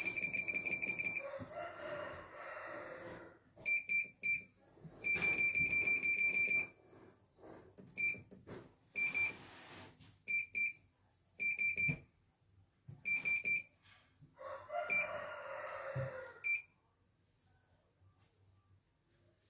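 CNY E900 computerised embroidery machine's control panel beeping as its keys are pressed: about a dozen short high beeps and two longer beeps, one at the start and one about five seconds in. Two spells of the machine's motor whirring come between them, one early and one about fifteen seconds in.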